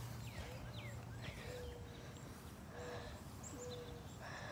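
Hand-cupped hooting call: a person blowing into cupped hands, making several short, steady hoots of the same low pitch.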